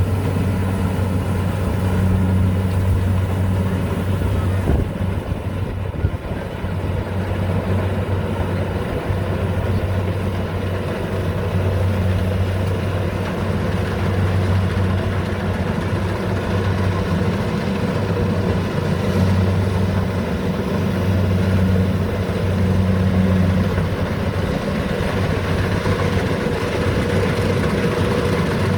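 A combine harvester's engine running steadily with an even, low hum.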